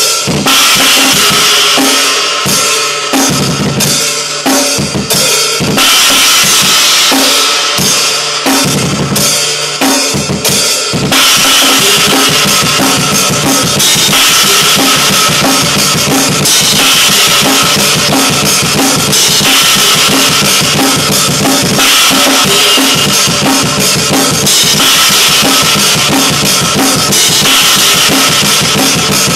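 Metal drumming on a Pearl drum kit with Zildjian cymbals: broken-up, stop-start hits for about the first eleven seconds, then continuous fast playing with bass drum, snare and cymbals.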